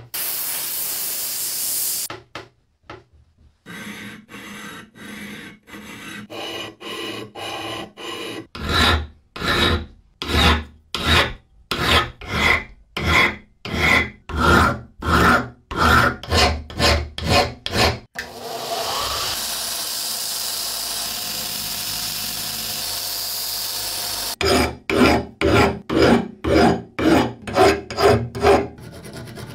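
Hand scraping strokes on the rusty metal of an antique adjustable wrench, back and forth at about two strokes a second, working off the rust. The strokes are fainter at first and louder later. They stop twice for a stretch of steady hiss.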